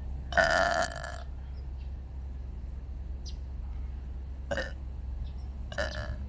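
A person burping: one loud burp lasting about half a second, just after the start, then two short, quieter burps near the end.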